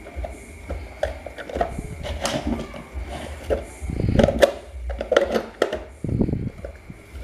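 Irregular clicks, knocks and scrapes of an electric fan motor's stamped-steel end cover being pressed onto the motor housing and worked with a screwdriver, busiest about four to six seconds in, over a steady low hum.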